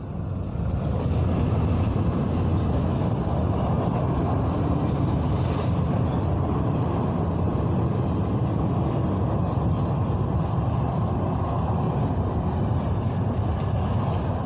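Indian Railways express train passing close by. Its coaches roll over the rails in a loud, steady rumble that steps up about half a second in as the locomotive arrives.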